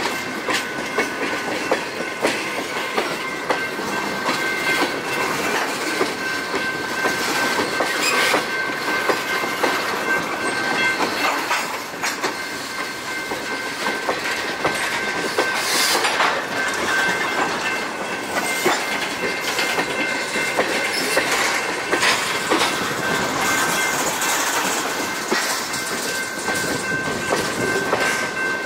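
Rail tank cars of a freight train rolling past, their steel wheels clattering and clicking over the rail joints, with a steady high-pitched ring over the clatter.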